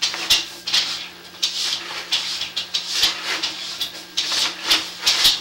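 Sewer inspection camera's push cable being fed down the line, scraping and rattling in short irregular strokes several times a second, over a steady low hum.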